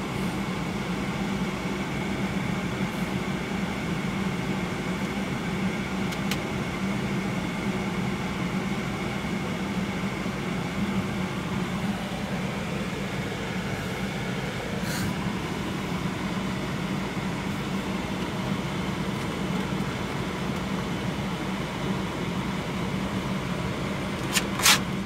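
Steady hum of a car and street traffic heard from inside the car's cabin, with a few faint clicks and one sharp click near the end.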